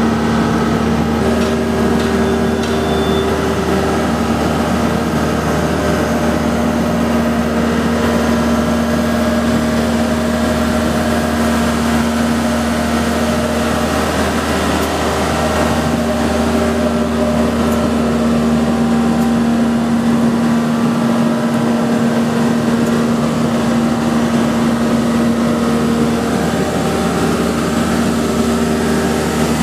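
Mobile boat hoist (travel lift) running steadily under load, its engine and hydraulic drive giving an even drone with a few held tones.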